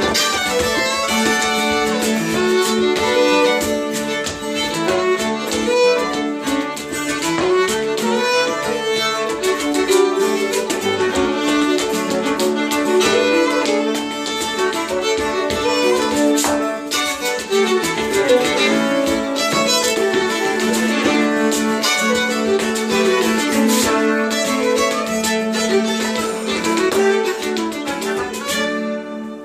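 Two fiddles, a 5-string fiddle and a 10-string Hardanger fiddle, play a lively folk tune over a held drone note and acoustic guitar, with a percussive dancer's shoes tapping sharp steps. The tune ends about a second before the close, and the strings ring on.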